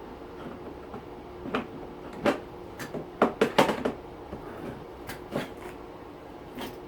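Irregular clunks and rattles of Bosch dishwasher parts being handled and worked loose, with a quick cluster of sharp knocks about three seconds in. A faint steady hum sits underneath.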